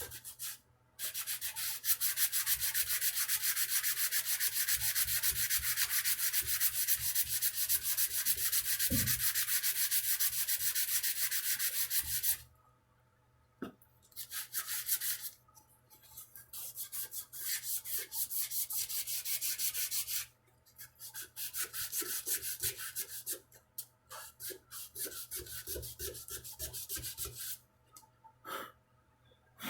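Sandpaper rubbing on a wooden guitar neck in quick repeated strokes: steady for about twelve seconds, then in shorter bursts with pauses between them.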